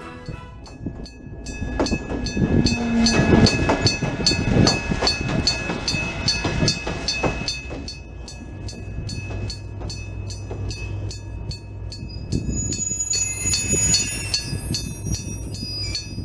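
Electromechanical level-crossing warning bell struck over and over in a quick, even rhythm, with a ringing tone that hangs between strikes. A train rumbles through the crossing underneath it, with a steady low drone from about halfway in.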